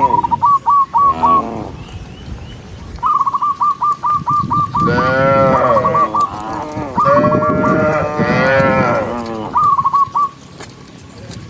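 Cattle mooing: several long moos from about halfway through, overlapping one another. Between and over them are quick runs of short, high, repeated calls, about six a second, the first right at the start.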